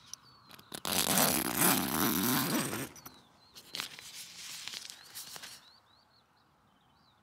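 A tent door zip pulled open with about two seconds of rasping, then nylon tent fabric rustling. After that come faint, short, repeated chirps of small birds.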